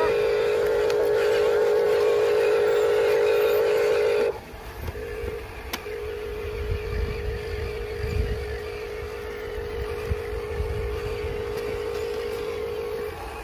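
Radio-controlled toy truck's electric motor and gearbox whining at a steady pitch, loud for about four seconds, then dropping abruptly to a quieter level and running on. A low rumble sits underneath in the second half.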